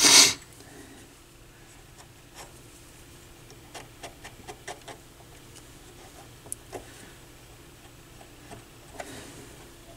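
A cotton swab working soft old grease off the plastic gear mechanism inside a turntable chassis: faint scrapes and small scattered clicks. A brief loud rustle comes right at the start.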